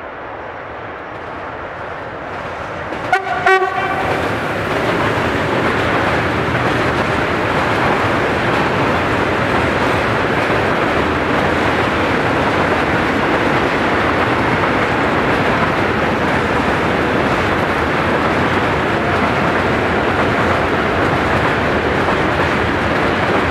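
Newag Dragon (E6ACTa) electric freight locomotive approaching and sounding two short horn blasts about three seconds in, then passing. A long train of tank wagons follows, rolling past steadily.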